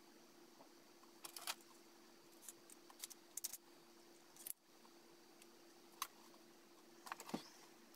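Faint, scattered clicks and small metallic rattles of a Glock 43 pistol being reassembled by hand, over a low steady hum.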